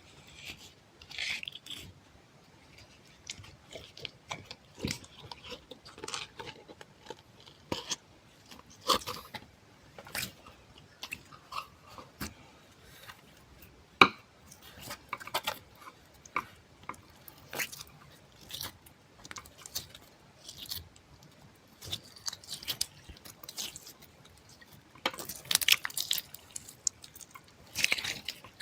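Close-miked ASMR crunching and crackling: irregular soft crackles and sharp clicks, with one loud snap about halfway through and a denser run of crackles near the end.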